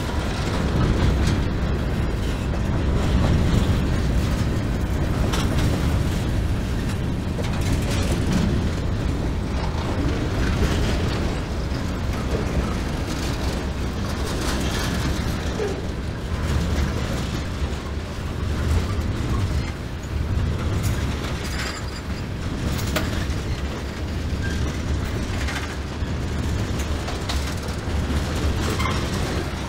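Freight cars of a CSX mixed freight train rolling past: a steady low rumble of steel wheels on rail, with irregular clicks and clanks from the wheels and couplers.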